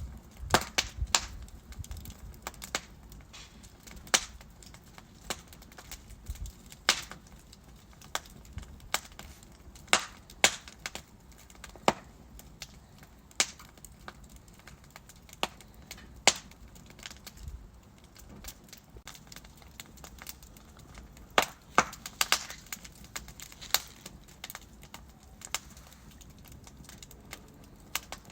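Wood logs burning in a fireplace, crackling with irregular sharp pops and snaps over a low steady hiss of the fire, the pops bunching into quick clusters about a second in and again just past twenty seconds.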